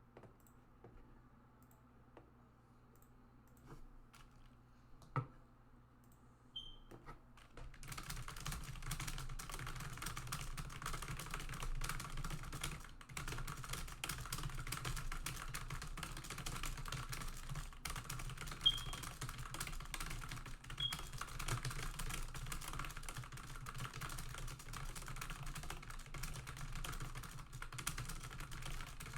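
Computer keyboard being typed on very fast, about 200 words a minute: a dense, unbroken run of keystrokes that starts about eight seconds in, after a few scattered clicks. A couple of short high blips sound partway through the run.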